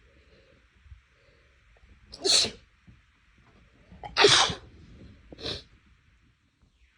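A person sneezing loudly twice, about two seconds apart, with a shorter, quieter burst about a second after the second sneeze.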